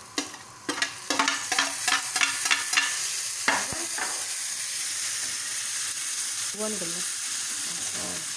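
A spatula striking and scraping a tawa in a quick run of strokes, about three or four a second, while chopped tomatoes are worked into frying onions. One louder stroke follows, then the mix sizzles steadily.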